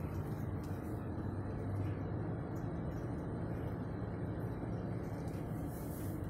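Delivery truck's engine running steadily as it drives slowly, a low, even drone heard from inside the cab.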